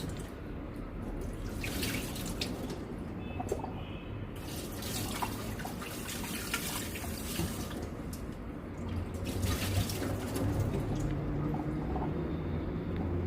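Kitchen tap running into a sink while raw pork is washed under it, the water splashing irregularly as the meat is handled.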